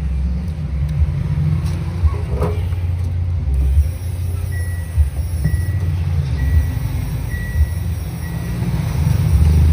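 Background music with a heavy, pulsing bass and a short high note repeated about once a second through the middle.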